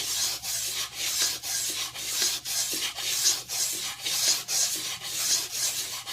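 500-grit wet-and-dry sandpaper rubbed back and forth by hand around an oiled crankshaft journal of a 10 HP Kohler engine, in steady strokes about two a second. The journal is being polished smooth again.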